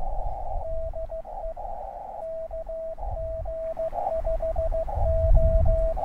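Morse code (CW) from an Elecraft KX2 transceiver during a contact on 20 metres: a single mid-pitched tone keyed on and off in dits and dahs, with short bursts of band hiss through the narrow filter in the gaps. A low rumble grows underneath near the end.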